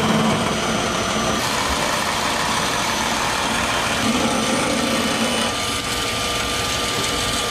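Bandsaw running steadily, its blade cutting through a thick hardwood board to saw out handle blanks.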